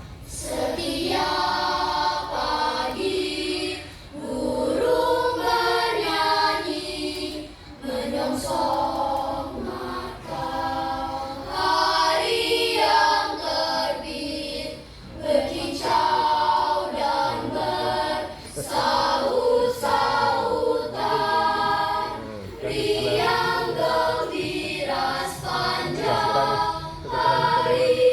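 Primary-school children's choir singing, in sung phrases of a few seconds each with short breaks between them.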